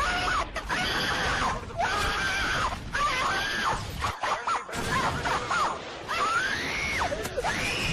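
High-pitched screaming in a run of long cries that swoop up and down in pitch, over a noisy background. It is a meme sound-effect clip.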